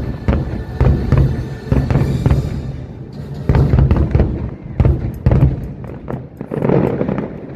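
Fireworks going off in quick succession: many sharp bangs and low booms, with music playing along. The bursts thin out in the last couple of seconds.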